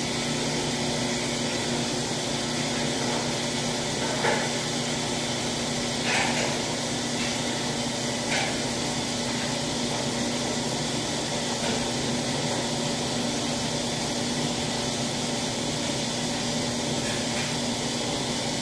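Laundry machines running: a steady mechanical hum with a low drone, with a few faint knocks in the first half.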